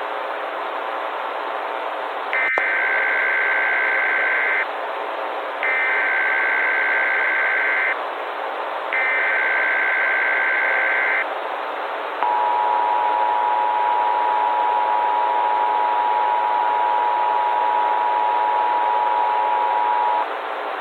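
Emergency Alert System tones over steady radio static: three SAME header data bursts of about two seconds each, then the two-tone EAS attention signal held for about eight seconds.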